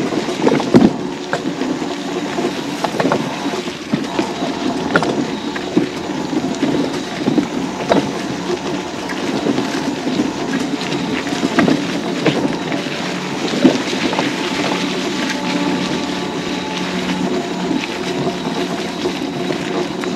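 Battery-powered mobility scooter riding along, its electric motor giving a steady hum, with frequent knocks and rattles as it rolls over bumps.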